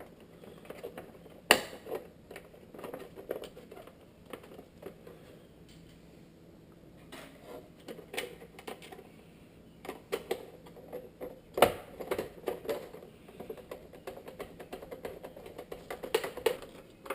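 Irregular small clicks and taps of hard plastic parts being handled, with two sharper knocks, one about a second and a half in and one near the end, as the bi-xenon projector is worked into the opened headlight housing.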